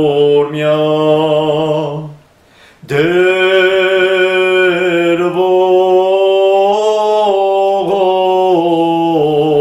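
A man singing a slow, unaccompanied prayer chant in long held notes, with a short pause for breath about two seconds in.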